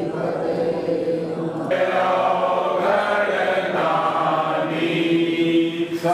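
A group of voices chanting a Hindu devotional hymn in unison, with long held notes.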